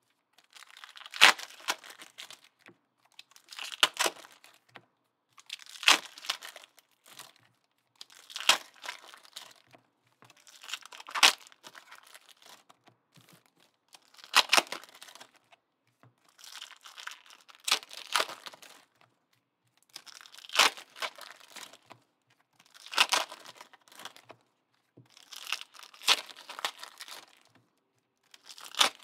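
Trading card packs being torn open one after another: a sharp rip of the wrapper about every two and a half to three seconds, with softer crinkling between.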